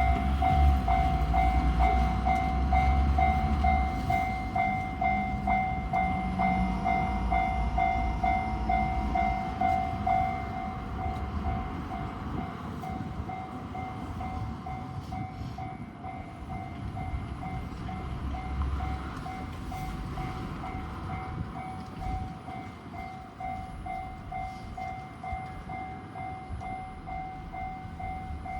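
Japanese level crossing warning bell ringing its repeating two-tone "kan-kan" alarm, with a train rumbling through the crossing, loudest in the first ten seconds and then fading.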